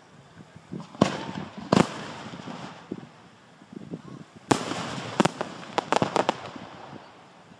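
Display fireworks (aerial shells and cakes) bursting overhead: two loud booms about a second apart, a third about three seconds later, then a quick run of sharp reports, each trailing off in a rumbling echo.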